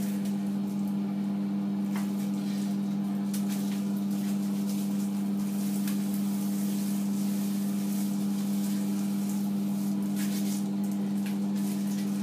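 A steady low electrical-sounding hum, with a few soft rustles and squelches from gloved hands working hair dye through wet hair.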